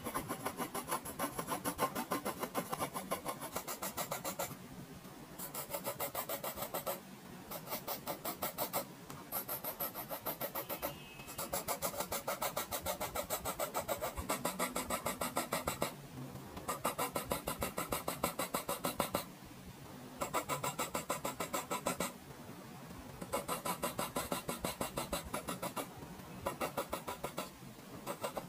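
Graphite pencil hatching on drawing paper: runs of quick back-and-forth scratching strokes, several a second, in bursts of one to three seconds with short pauses between.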